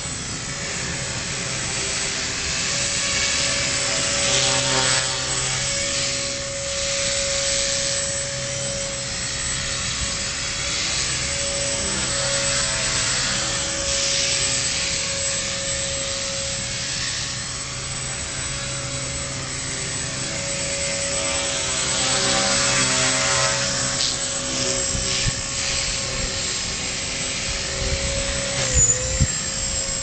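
Align T-Rex 250 electric RC helicopter in flight: a steady whine from its motor and rotors, with a hiss that swells and fades. Near the end the whine dips briefly in pitch and a few low thumps sound.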